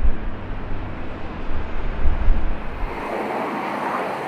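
Wind buffeting the microphone over the low rumble of a large jet airliner's engines. About three seconds in, the gusty low rumble stops and a steady, even rushing jet noise carries on.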